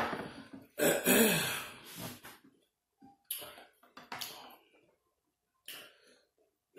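A woman's throat noise at a meal: a sharp burst at the start, then a longer one about a second in that falls in pitch, followed by a few short faint eating sounds.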